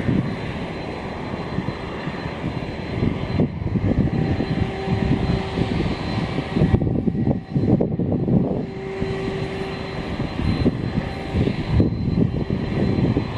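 Strong typhoon wind roaring in gusts and buffeting the microphone, with a faint steady tone coming and going.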